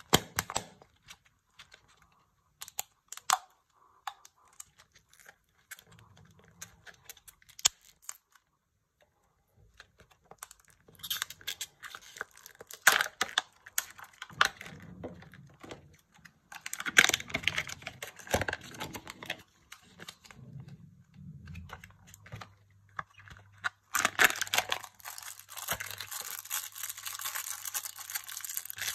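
Surprise-egg packaging handled and unwrapped by hand: scattered clicks and taps at first, then bursts of foil and plastic crinkling and tearing. Near the end comes steady crinkling as a clear plastic toy bag is torn open.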